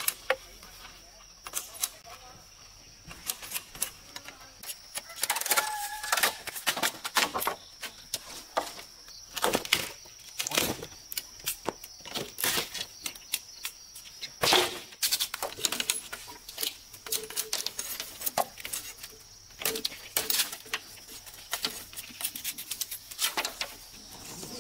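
Machete blade chopping and shaving along bamboo strips as they are trimmed and split: many sharp, irregular knocks and scrapes, coming in quick clusters.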